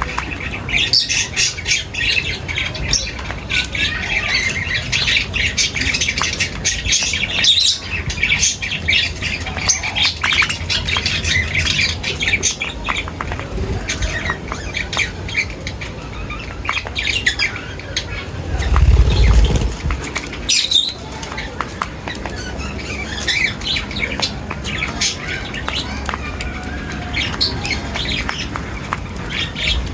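A flock of birds chirping and squawking, many quick high calls overlapping without a break. A brief low rumble comes about two-thirds of the way through.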